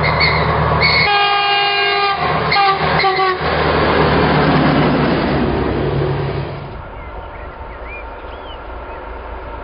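Diesel multiple unit passing close by, its engine and wheels running, while its horn sounds one blast of about a second followed by two short toots. The passing noise ends abruptly about two-thirds of the way through, giving way to birds chirping over a faint low rumble.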